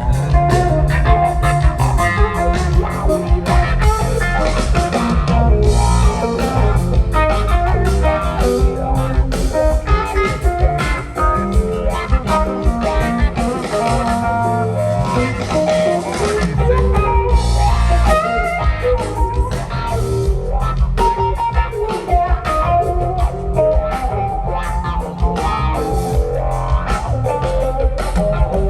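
A live rock band playing an instrumental blues-rock jam: electric guitar lines over bass guitar and drum kit, with no singing.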